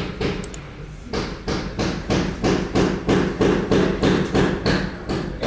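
Regular knocking, about three blows a second, fainter for the first second and then steady and strong.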